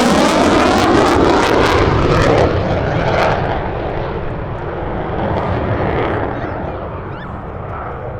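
Military aircraft passing low overhead: a loud roar that sweeps past and fades away over the following seconds.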